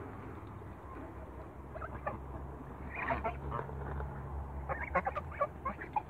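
Young African geese feeding, giving short scattered calls that bunch up around the middle and again near the end, over a low steady hum.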